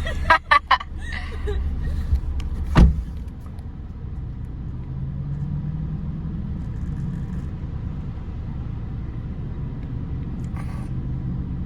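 Car engine running as the car pulls away and drives, a steady low hum. There is a single sharp thump about three seconds in, and a few short sharp sounds in the first second.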